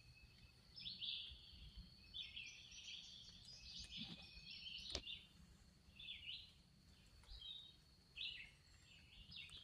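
Songbirds calling faintly in short, repeated chirping phrases over a low steady background hum, with one sharp click about five seconds in.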